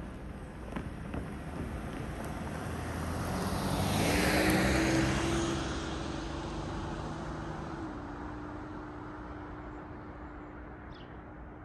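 A car drives past on the road, its tyre and engine noise swelling to a peak about four seconds in and then fading away.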